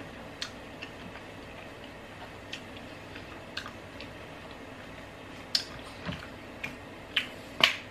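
A person chewing food with the mouth closed: sparse wet mouth clicks and smacks, with a few sharper, louder clicks near the end.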